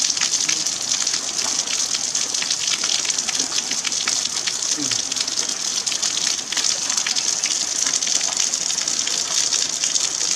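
Rain falling steadily: a dense, even hiss full of small drop ticks.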